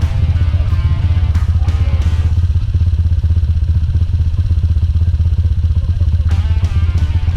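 Trail motorcycle engine running steadily, with background music over it.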